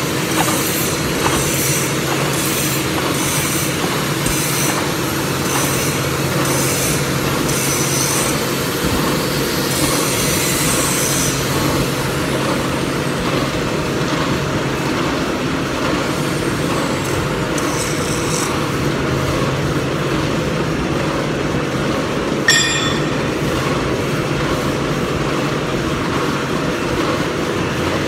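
Vertical milling machine running, its disc cutter slotting steel under flowing coolant: a steady machine hum with a high, rhythmic squeal from the cut, repeating about every two-thirds of a second, which fades after about eleven seconds and returns briefly later. A single sharp click comes a little past the two-thirds mark.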